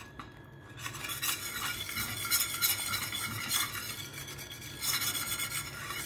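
Metal wire whisk stirring and scraping rapidly through a thick yoghurt sauce in a pan, starting about a second in and easing briefly near the end. The whisking dissolves chicken bouillon into the sauce and keeps the yoghurt-and-egg mixture from curdling.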